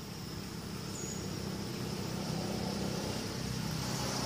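Steady high-pitched insect drone, such as crickets or cicadas, over a low rumble that grows louder toward the end, with a brief high chirp about a second in.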